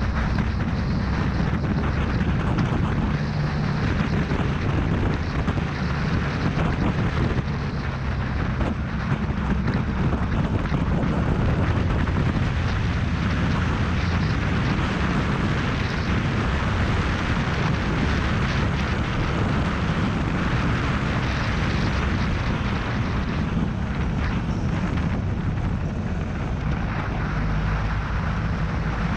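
Motorcycle running steadily at road speed, with heavy wind rush over the microphone.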